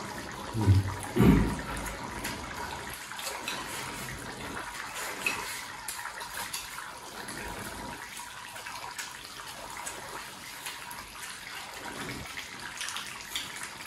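Pot of broth simmering on a tabletop burner, a steady bubbling hiss, with chopsticks ticking against rice bowls and two dull knocks about a second in.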